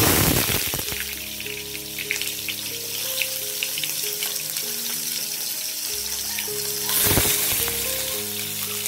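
Small whole fish dropped into hot oil in a frying pan: a sudden loud burst of sizzling that settles into steady frying. About seven seconds in, a second fish goes into the oil with another loud burst of sizzling.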